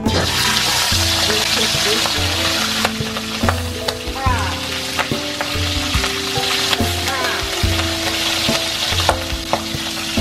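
Raw pork strips dropped into hot oil in a wok, the sizzle starting suddenly as they go in and then running on as a steady, loud deep-frying hiss. Background music with a pulsing bass plays underneath.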